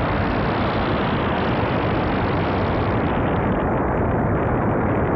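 Volcano eruption sound effect: a loud, steady rushing rumble of noise, its hiss thinning slightly a little past halfway.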